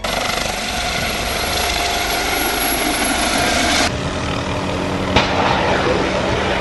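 Helicopter turbine and rotor noise, a loud steady mechanical rush with a thin whine over it. About four seconds in it cuts abruptly to another helicopter in flight, with a lower steady drone.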